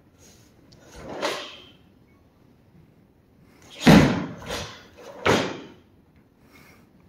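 Karate kata movements: a softer swish about a second in, then sharp snaps of the cotton gi and thuds of bare feet landing on the mat, three hits between about four and five and a half seconds in, the first the loudest.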